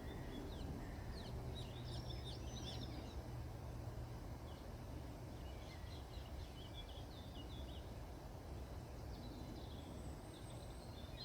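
Faint birdsong of short chirps and twitters, coming twice in clusters, over a steady low outdoor rumble.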